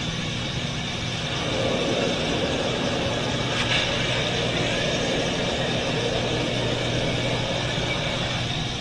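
Steady drone of a light single-engine plane's engine and propeller heard inside the cabin, with wind rushing in through the open side window.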